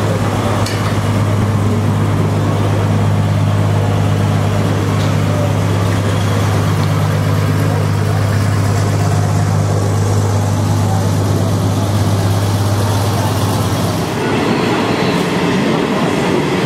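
A steady low machine drone with a deep hum runs until about fourteen seconds in. It then gives way to the rumble of an electric train pulling into the platform on the rails.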